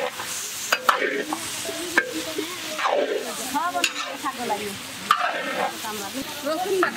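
Beef and diced potatoes sizzling in a large iron wok as a metal ladle stirs them, with a few sharp scrapes of the ladle against the pan.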